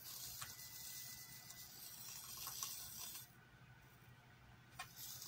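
Aerosol can of Reddi-wip whipped cream spraying: a hiss of about three seconds, then a second short squirt near the end.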